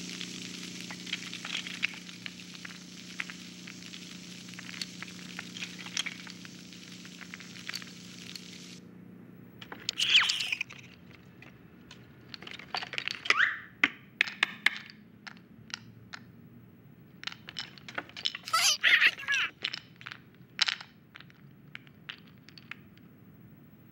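Film sound effects with no dialogue or music: a steady hiss over a low hum that cuts off about nine seconds in, then scattered clicks, taps and a few short squeaky sounds that sweep in pitch.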